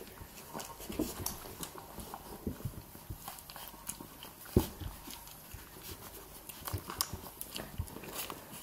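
Puppies nursing from their mother: irregular sucking and smacking sounds with many small clicks, and one louder knock about four and a half seconds in.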